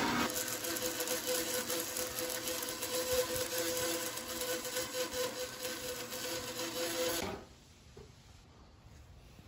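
Horizontal metal-cutting band saw with a 10 tpi bimetal blade running and cutting through aluminium tubing wrapped in polyester fabric, a steady machine hum. The sound stops abruptly about seven seconds in.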